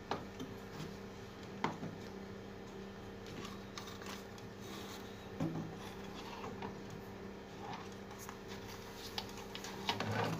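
Faint clicks, knocks and rustles of a CRT TV's circuit board and its attached wires being handled and tipped up, over a steady low hum.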